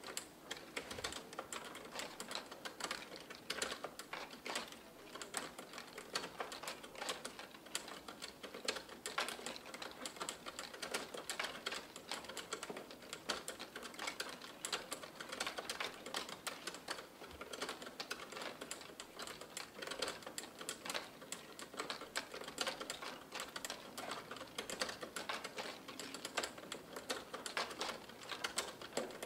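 A bicycle's chain and sprockets turning slowly, making a dense, fast, irregular clicking and rattling.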